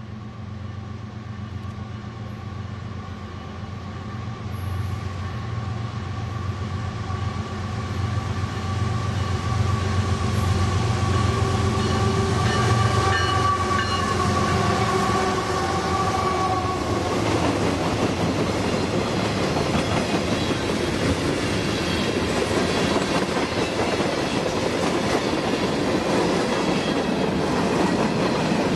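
Two CSX diesel freight locomotives approach and pass, a deep steady engine drone with a higher whine, growing louder as they near. After about 17 seconds the drone gives way to the rolling rumble and clickety-clack of freight cars going by.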